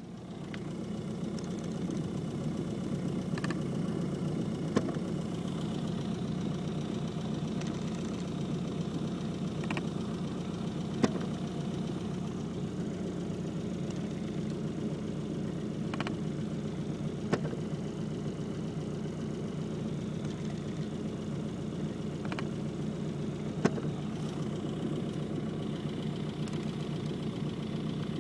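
Isuzu Trooper engine idling steadily, with sharp clicks in pairs about a second and a half apart, recurring roughly every six seconds: the weird noise it makes after the AC is turned off.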